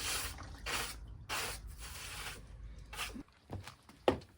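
A broom sweeping a workshop floor: several swishing strokes, followed by a couple of short knocks near the end.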